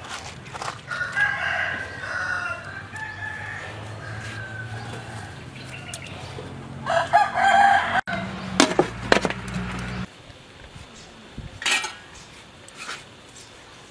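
A rooster crowing twice, once about a second in and again near seven seconds, with a few sharp knocks after the second crow.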